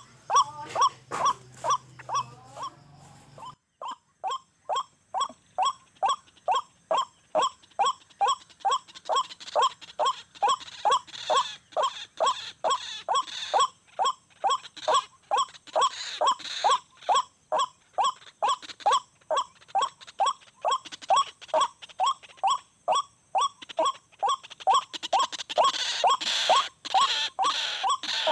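White-breasted waterhen (ruak-ruak) calling: one short harsh note repeated very evenly, about twice a second, without a break. A low hum sits under the calls for the first three or four seconds, then stops.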